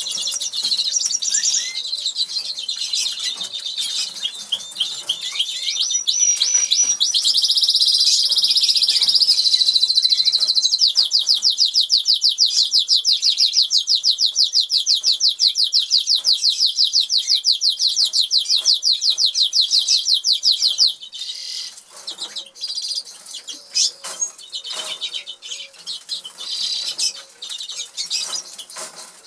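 Norwich canary singing: varied high warbled phrases, then a long, fast, even trill lasting about ten seconds that cuts off suddenly, followed by scattered short chirps and small clicks.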